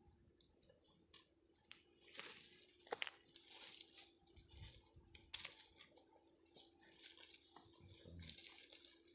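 Faint rustling and crinkling of a green mesh bag and dry leaves being handled, with a few sharp clicks.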